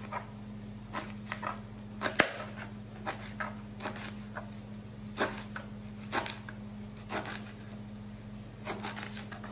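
Kitchen knife slicing scent leaves on a plastic cutting board: irregular knocks of the blade on the board, about one a second, the loudest about two seconds in. A steady low hum runs underneath.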